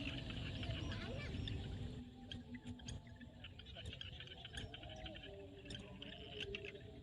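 Frogs calling in a field at dusk, mixed with many short bird chirps and insect sounds. A low background rumble drops away about two seconds in.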